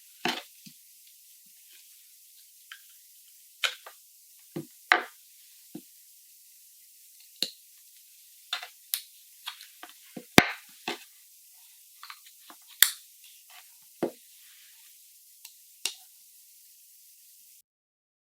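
Microphone cables being unplugged and replugged by hand to take the Cloudlifter CL-1 out from between the Rode NT1 and the XVive P1: a series of irregular sharp clicks and knocks of connectors and handling over a faint hiss, which cuts off suddenly near the end.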